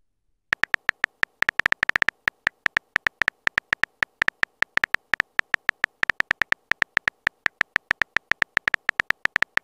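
Simulated phone-keyboard typing sound from the TextingStory chat app: a quick, uneven run of short clicks, several a second, one for each letter as a message is typed out.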